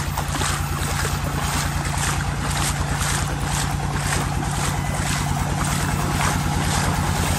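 A tube well's pump engine running with a steady low drone, while water gushes from its outlet into the irrigation channel. Over it is a rushing noise that pulses about three times a second.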